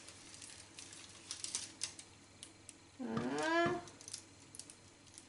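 Faint crackling and rustling of a cloth and baking paper as soft bread dough is tipped out onto a parchment-lined baking tray. About three seconds in, a short voice-like sound, under a second long, that rises and bends in pitch.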